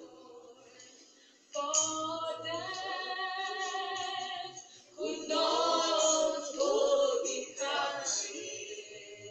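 A group of voices singing together without instruments. The first second and a half is faint, then two long sung phrases follow with held notes.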